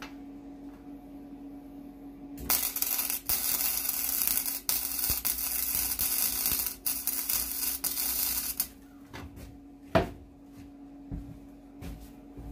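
Electric arc welding on a cracked steel lawn mower deck: the arc crackles and sizzles for about six seconds, starting a couple of seconds in, with a few brief breaks in the bead. A single sharp knock follows about ten seconds in.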